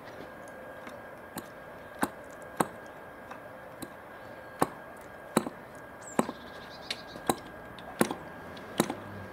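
Wooden propeller of a 1946 Super Cyclone .604 (10cc) spark-ignition model engine being flicked over by a gloved hand to start it. There are about a dozen sharp snaps at irregular intervals as the prop is flipped through compression, and the engine does not yet keep running.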